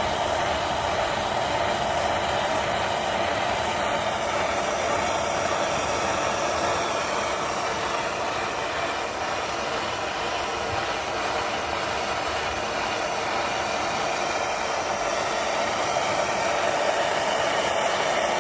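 Gas soldering torch flame burning with a steady hiss, heating brass sheet pieces up to soldering temperature.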